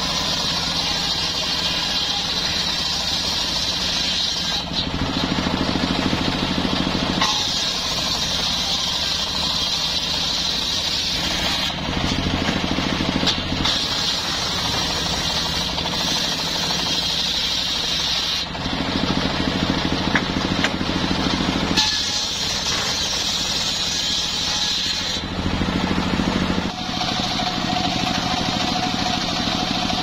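Homemade circular sawmill with a large exposed blade ripping a log lengthwise into beams. The sound keeps running but changes every few seconds, shifting between a higher, hissing cutting tone and a lower, heavier tone as the timber is pushed through.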